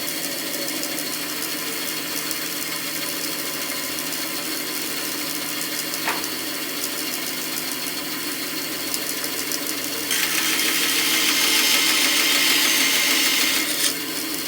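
Bandsaw running steadily on its freshly welded blade, with a light click about six seconds in. About ten seconds in, a louder hiss comes in and lasts about four seconds.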